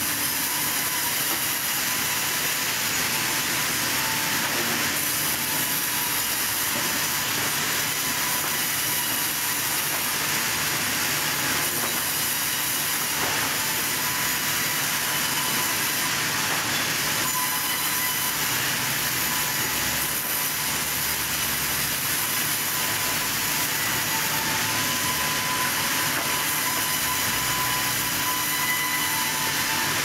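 Vertical band saw running steadily as it cuts lengthwise through a log being fed past the blade: an even, hissing machine noise with a faint steady whine.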